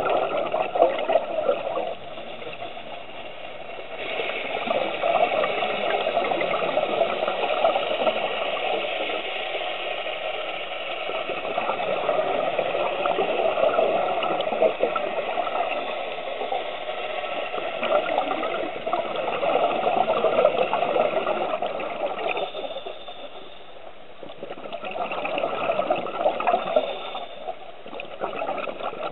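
Underwater bubbling and gurgling of scuba divers' regulators and exhaled bubbles, a steady watery noise that swells and eases over several seconds, with a brief lull about two seconds in and another near the end.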